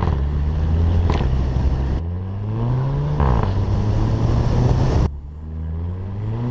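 Volkswagen Fusca's turbocharged TSI engine accelerating hard through the DSG dual-clutch gearbox. There is a short sharp burp, the 'DSG fart', on each upshift: about a second in and again a little after three seconds. The engine note drops at the shift and climbs again.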